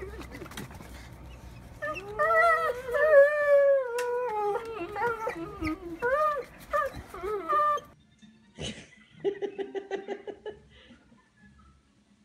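Rottweilers howling together in long, wavering calls that rise and fall for several seconds, then stop.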